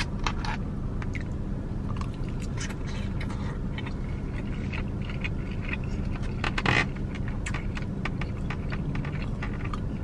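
Plastic fork scraping and clicking against a takeout container while scooping chicken and rice, then close-up chewing of the mouthful. The small scrapes and clicks come irregularly, with a louder one about two-thirds of the way through.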